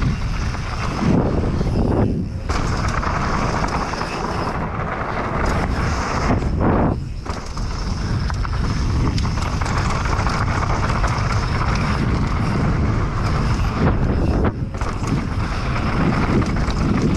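Wind buffeting the microphone and knobby tyres rolling over a dirt trail on a Specialized Demo downhill mountain bike during a fast descent. The rushing is steady, with a few brief lulls.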